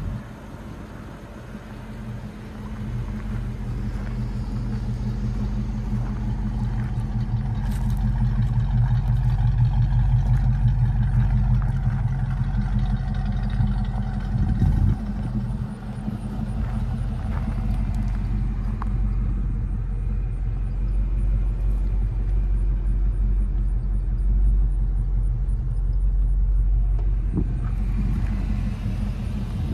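A 1990 Ford Mustang LX's 5.0-litre V8 idling steadily with a low, even note, growing louder over the first several seconds.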